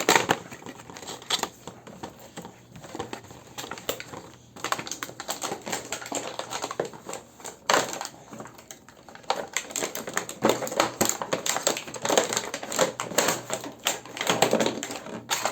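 A product box and its plastic packaging being opened and handled: irregular clicks, taps and crinkling, in a small room.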